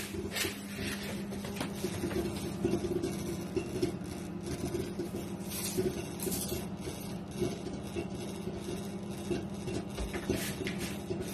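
Nardi built-in microwave oven running with a steady hum as it reheats leftover unpopped popcorn kernels to pop them again, with a few scattered sharp pops.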